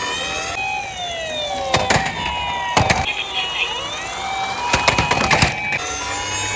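Overlapping siren sounds: an ambulance-style hi-lo two-tone siren switching back and forth between two steady pitches, with falling wail glides over it. Sharp plastic clacks of a toy car running down a slope come around two, three and five seconds in.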